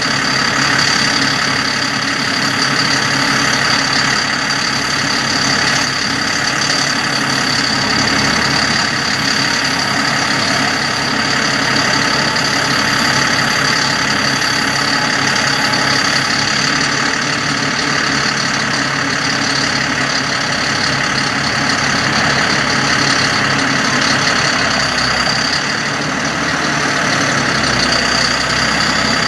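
GMC C7500 bucket truck's engine running steadily with the PTO engaged, driving the hydraulics of the Terex Hi-Ranger XT-55 boom as it moves. A steady high tone rides over the engine throughout.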